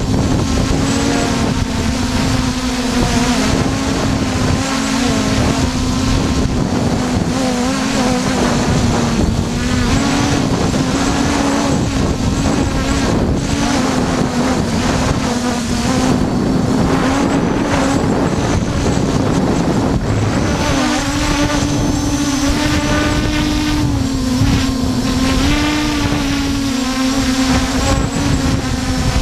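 Quadcopter drone's motors and propellers buzzing steadily, the pitch wavering up and down as the throttle shifts to hold it against gusty wind, with wind rushing over the microphone.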